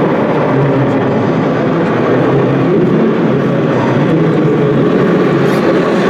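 Radio-controlled model truck's sound module playing a diesel truck engine, a steady running drone with no breaks.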